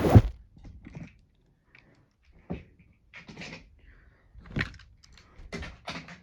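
A loud thump, then a handful of scattered knocks and clatters, like hard objects being handled and set down.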